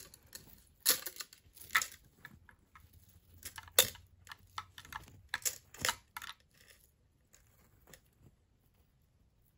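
Gold-tone metal chain strap of a Dior Minaudière lipstick clutch clinking and clicking as it is hooked onto the clutch's metal clasps: a run of sharp metallic chinks with a musical jingle, the loudest about four seconds in, stopping after about six seconds.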